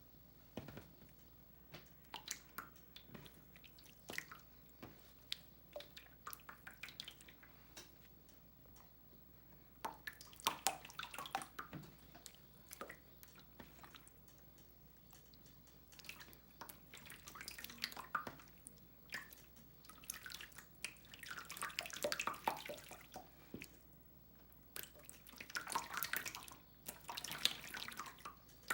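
Handmade slime being squished by hand, making wet clicks and pops from trapped air. Single pops come at first, then denser bursts of crackling pops.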